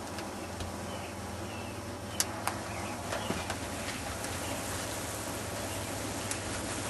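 Maple sap boiling hard in an open steel pan on a wood-fired barrel-stove evaporator: a steady bubbling hiss that grows brighter about halfway through, with a few sharp pops about two seconds in.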